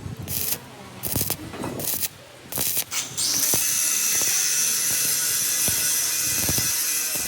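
Several short hissing bursts, then a steady high hiss from about three seconds in, with a few light knocks underneath.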